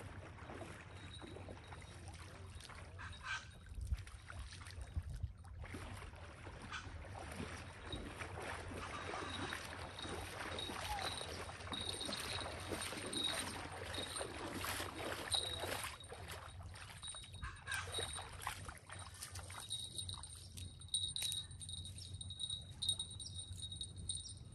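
Legs wading through shallow lake water, a run of sloshing, splashing steps that grows louder and busier from about eight seconds in as the wader comes nearer, over small waves lapping at the shore.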